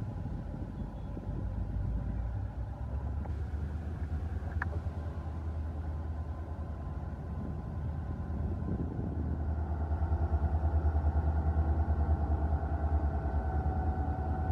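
WDG-4 (EMD GT46MAC) diesel-electric locomotive's two-stroke diesel engine running under load as it approaches hauling a freight train: a steady deep rumble that grows louder about two-thirds of the way in, when a steady whine joins it.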